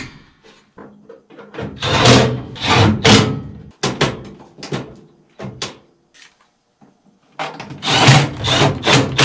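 Knocking and rattling of hands and a screwdriver working inside a gas furnace's sheet-metal cabinet. The knocks come in irregular clusters, with a quiet gap of about a second about two-thirds of the way through.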